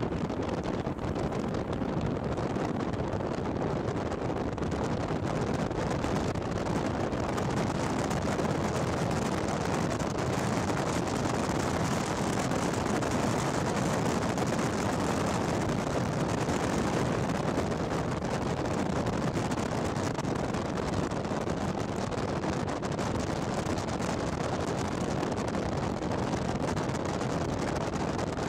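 Steady roar of strong wind from a large wedge tornado, mixed with wind buffeting the microphone.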